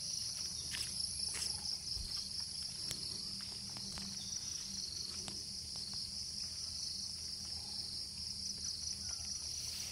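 Insects chirring in a steady high-pitched drone, with a few faint clicks scattered through it.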